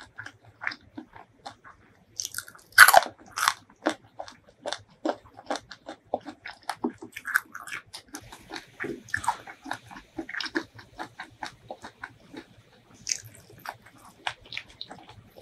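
Close-miked eating: one loud crunchy bite into a raw cucumber chunk about three seconds in, then steady chewing with many small wet mouth clicks and smacks.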